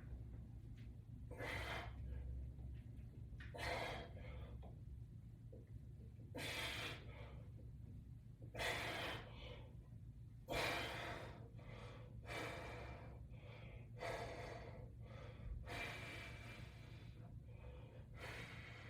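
A man breathing hard in time with resistance-band exercise reps, one forceful breath about every two seconds, eight in all, over a low steady hum.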